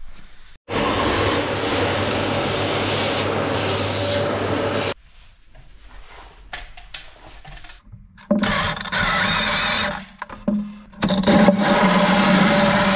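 A small electric motor running steadily in three bursts: a long one of about four seconds, a shorter one a little past the middle, and another near the end. Scattered knocks and handling noises fall in the quieter gap between them.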